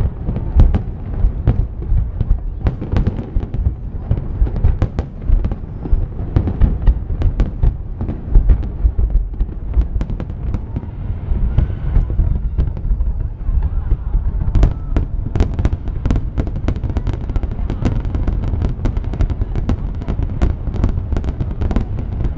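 Aerial fireworks display: shells bursting one after another over a continuous low rumble, turning into a dense, rapid crackle of bangs about two-thirds of the way through.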